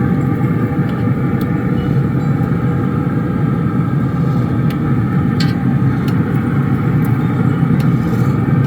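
Steady low rumble, with a few light metal clicks of tongs against a cast iron skillet as bacon strips are flipped over.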